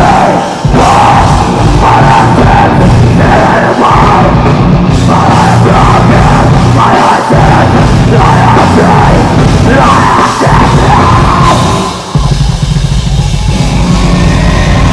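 Live heavy rock band playing at full volume: distorted electric guitars, bass and a drum kit, with shouted vocals. About twelve seconds in the music briefly drops out, then the band comes back in.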